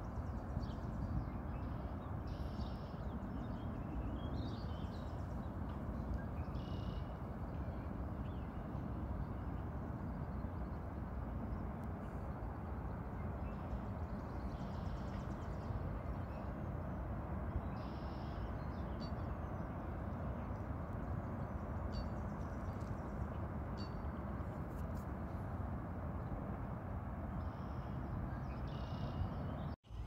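Steady low outdoor background noise with faint, short bird chirps every few seconds; the sound cuts out for an instant near the end.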